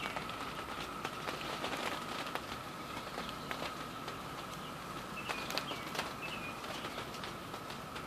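Chorus of Brood II periodical cicadas heard from a distance: a steady, even drone, with scattered light clicks.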